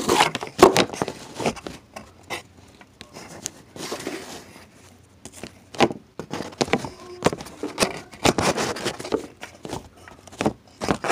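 Handling noise of a camera being picked up, moved and set down: irregular knocks, bumps and rustles, with a dense cluster of them about eight to nine seconds in.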